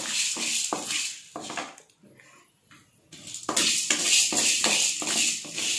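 A wooden spatula scraping and stirring whole spices dry-roasting in a metal kadai, in quick strokes with the spices rattling across the pan. The stirring stops for about a second and a half, then starts again.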